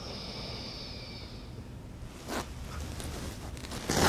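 A dog shifting on a fabric cushion, rustling briefly twice, the second time louder, near the end. Before that, a high, thin whine lasts about a second and a half.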